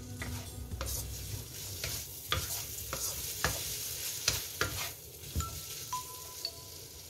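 Wooden spatula stirring and scraping shredded chicken and onion around a wok as they sizzle, a steady hiss broken by sharp scrapes and taps against the pan.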